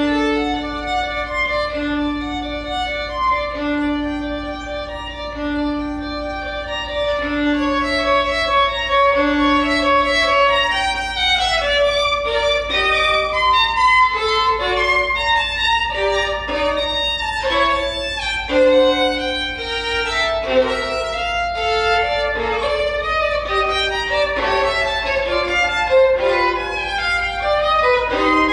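Unaccompanied violin playing. It opens with slow, repeated long notes on one low pitch, then about halfway through moves into a quicker passage of many shorter notes that climb higher.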